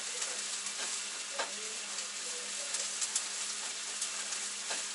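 Food sizzling in a frying pan: a steady frying hiss with a few light clicks and pops.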